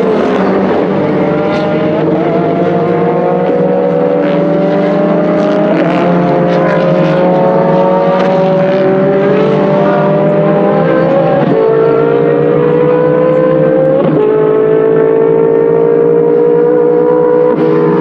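A pack of Abarth 500 race cars with small four-cylinder engines accelerating hard. The engine note climbs steadily and drops back at three upshifts, about six, eleven and fourteen seconds in.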